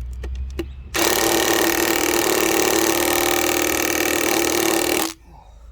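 Impact wrench hammering a coach screw into a hardwood sleeper with no pilot hole, in one continuous burst of about four seconds that starts and stops suddenly. A few light clicks come just before it.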